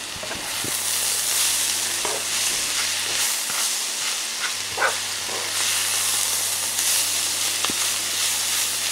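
Onion, carrot and bell pepper frying in oil in a pot, with a steady sizzle. A few short knocks and scrapes break in now and then.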